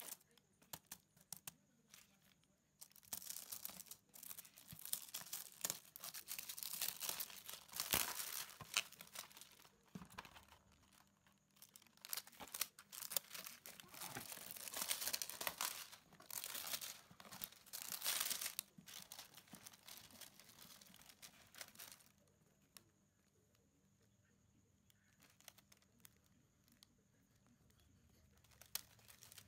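Clear plastic wrapping on a boxed tablet crinkling and crackling as it is handled and pulled at, in dense spells for most of the stretch, then dying down about three quarters of the way through.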